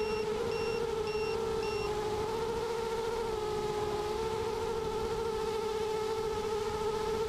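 Mini FPV quadcopter's electric motors and propellers giving a steady whine that wavers slightly in pitch with the throttle. Short electronic beeps, about two a second, sound over it during the first two seconds and then stop.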